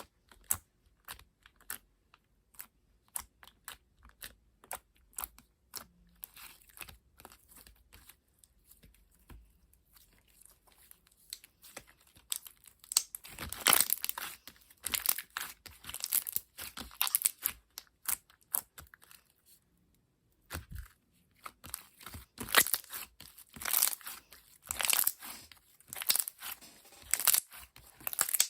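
Green slime being squished and pressed by hand, making sticky clicks and pops. The pops are sparse at first, then come in bouts of loud crackling from about halfway, with a brief pause about two-thirds in.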